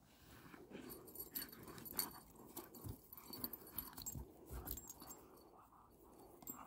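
Two dogs, a Kangal and a Doberman, play-fighting: short dog vocal sounds mixed with scuffling and rustling in the grass, coming in irregular bursts.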